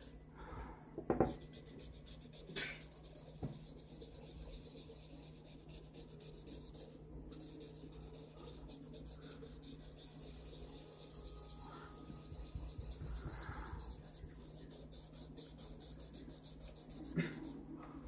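Faint scratching and rubbing of a graphite pencil on drawing paper as a portrait is sketched, with a few short taps in the first few seconds.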